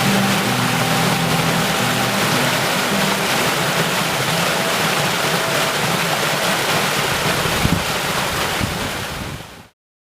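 Steady rushing of a waterfall, an even loud hiss that fades out and cuts off about nine and a half seconds in.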